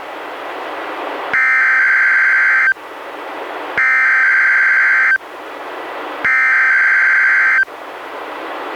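NOAA Weather Radio's SAME digital alert header, sent three times: three raspy, buzzing data bursts of about 1.4 seconds each, with radio static hiss in the gaps between them. The header opens the Required Weekly Test alert.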